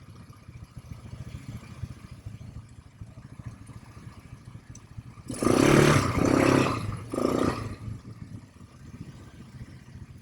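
ATV engine running at low throttle, with three short loud bursts of throttle a little past halfway.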